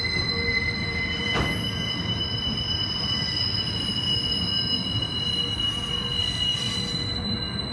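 Freight train's covered hopper wagons rolling past on a curve, their wheels squealing in several high steady tones over a low rumble. One sharp clank about a second and a half in.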